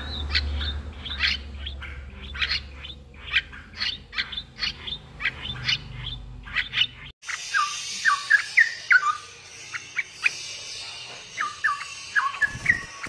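Straw-headed bulbul (cucak rawa) chicks begging for food with rapid, repeated high chirps. About seven seconds in, a cut brings shorter, sliding chirps from the fledglings over a faint hiss.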